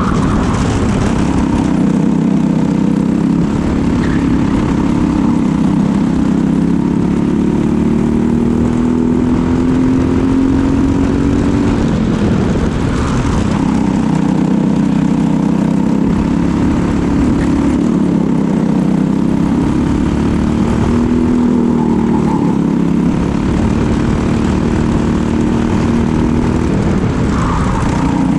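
Briggs & Stratton LO206 four-stroke single-cylinder kart engine at race pace, heard onboard. Its pitch climbs steadily along the straights and drops sharply twice, about halfway through and again near the end, as the kart slows for corners, then climbs again.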